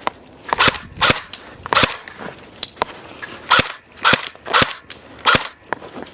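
Airsoft guns firing single shots: about eight sharp cracks spaced irregularly, half a second to a second apart, with a few fainter ones among them.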